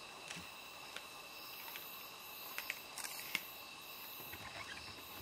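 Steady high chirring of night insects, with scattered sharp clicks and cracks of a leopard tearing and chewing at a carcass, the loudest about three seconds in.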